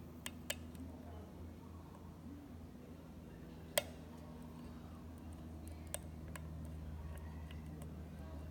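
Lock pick and tension wrench working in a cheap padlock's keyway: a few sharp metal clicks and ticks, the loudest about four seconds in, over a low steady hum.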